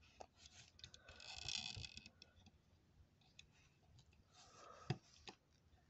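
Faint clicks and a soft scratchy rustle of fingernails working at the tiny opening doors of a diecast model car, prying to get them open. The scratching is densest about a second in, and a sharper click comes near the end.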